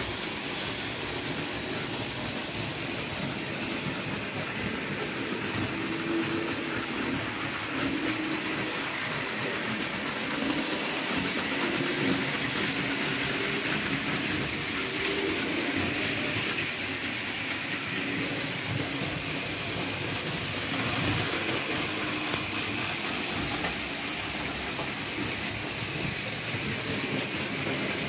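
Märklin model trains running on the layout: a steady electric motor hum that wavers slightly, mixed with the hiss and rattle of metal wheels rolling on metal track.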